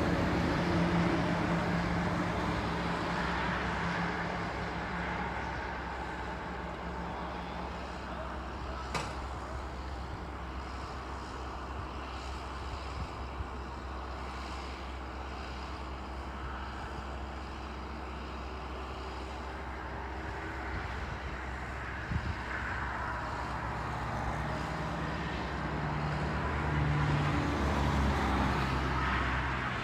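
A motor vehicle engine runs, fading over the first few seconds into a steady low rumble. It grows louder again near the end.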